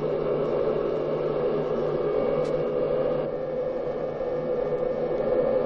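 Steady engine and airflow noise heard in the cockpit of an Il-86 airliner on its takeoff roll, with its engines at takeoff power.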